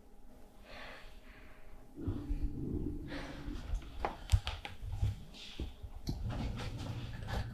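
A soft breath out, then rustling and several sharp knocks and thuds of a person getting up off a couch, over a low rumble.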